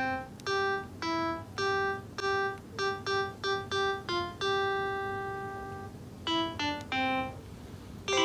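Simple piano melody played one note at a time, with a long held note about halfway through and a short pause near the end.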